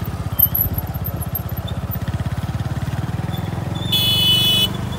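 Motorcycle engine running at low revs with a rapid, even firing pulse. A brief high-pitched tone sounds about four seconds in.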